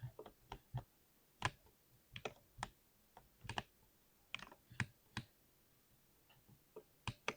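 Keystrokes on a mechanical keyboard with Cherry MX Silver linear switches: separate, unevenly spaced key presses, with a lull of about a second and a half late on.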